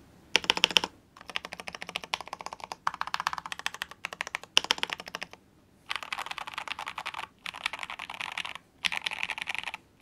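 Fast typing on a KBD67 Lite mechanical keyboard with Magic Girl tactile switches: bursts of rapid keystrokes with short pauses between them.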